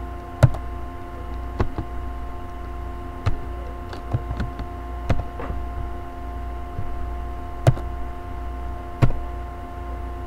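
Computer keyboard keystrokes: a handful of separate sharp clicks at irregular intervals, over a steady electrical hum.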